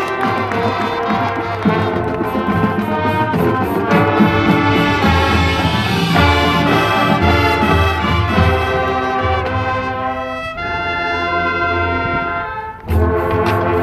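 High school marching band playing: brass sustaining full chords over repeated low drum hits. The low hits drop out for a softer held chord, which fades briefly, then the full band comes back in loudly about a second before the end.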